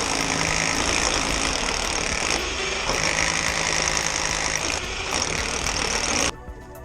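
Steady engine-like running noise, cutting off abruptly near the end.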